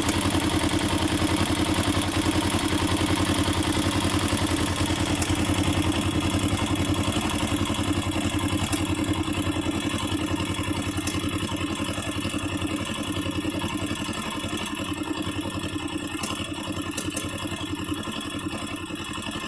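Honda NX4 Falcon's single-cylinder engine idling with a fast mechanical clatter over its beat, the strange noise the owner suspects comes from the automatic decompressor or the cam chain tensioner and which is more pronounced on thinner Honda HGO 10W30 oil. The sound grows a little quieter and duller over the second half.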